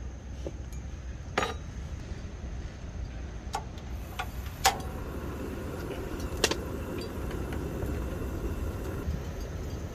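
A few sharp clinks and knocks of dishes and utensils, four or five separate strikes, over a steady low background rumble.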